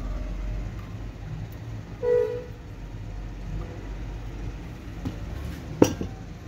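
Steady low rumble of passing traffic. About two seconds in there is a short pitched blare, and near the end a single sharp click.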